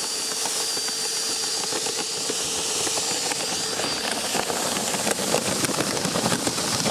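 Makita cordless drill running steadily, turning a 90 mm post-hole auger inside PVC pipe to lift chicken grain, with a hiss and rattle of grain moving up the pipe. A faint steady whine fades after a few seconds while small rattling clicks grow.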